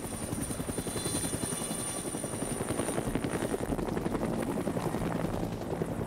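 Helicopter in flight: a fast, even rotor chop with a steady high whine above it.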